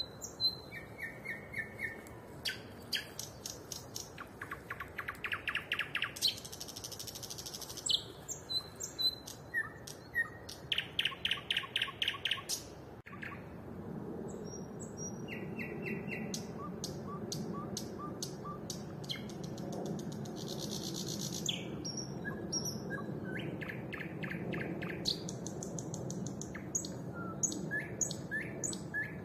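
A songbird singing in varied phrases: runs of fast repeated notes, rattling trills and clear whistles, each phrase separated by short pauses. It is a nightingale-like song, which the uploader takes for a nightingale while wondering whether a thrush or starling is imitating one. About halfway through, a steady low rumble comes in under the song.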